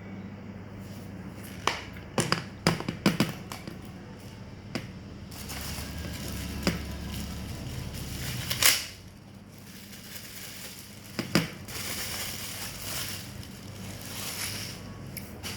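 Packaging being handled during unboxing: sharp clicks and snaps, a quick cluster of them about two seconds in and a few single ones later, with rustling and crinkling between.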